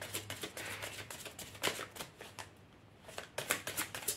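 A deck of tarot cards being shuffled by hand: quick flicking clicks of cards slipping over one another, easing off briefly about two and a half seconds in, then starting again.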